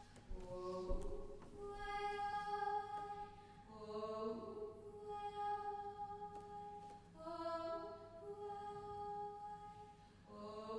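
Mixed-voice a cappella ensemble singing long held chords, in phrases of a few seconds with short breaks between them.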